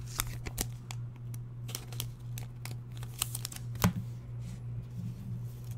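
Trading cards being handled and set down on a desk: scattered light clicks and taps, the sharpest about four seconds in, over a steady low hum.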